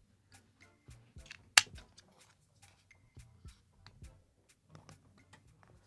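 Scattered light clicks and taps of small plastic parts being handled: earbuds and their charging case, with one sharp, louder click about a second and a half in.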